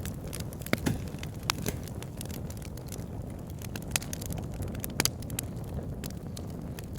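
Wood fire burning in a log burner: a steady low rumble of flames with irregular sharp crackles and pops from the logs, a couple of louder pops about a second in and about five seconds in.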